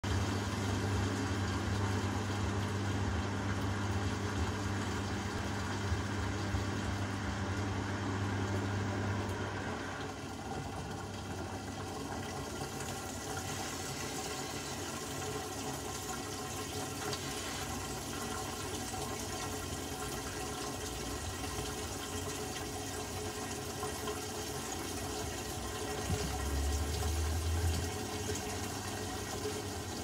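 Beko WTKB4011W front-loading washing machine on its wash cycle: soapy water sloshing in the turning drum. A steady low hum drops away about a third of the way in, and a short low hum comes back near the end.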